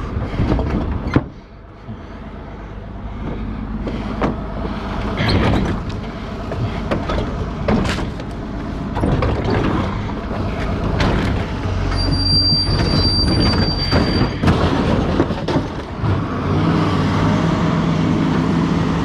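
An engine running, with repeated clanks and scrapes of metal scrap being handled. A steady high squeal sounds for a couple of seconds past the middle.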